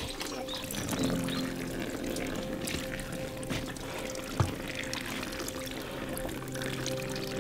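Water running or pouring steadily under background music with long held notes, with a single short knock about halfway through.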